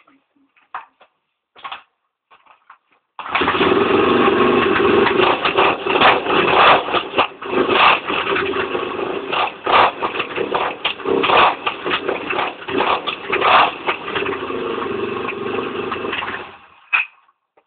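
KTM LC4 400 single-cylinder four-stroke motorcycle engine, running with the exhaust's rear silencer removed. It catches about three seconds in, runs loudly while being revved in uneven blips, then cuts off suddenly near the end.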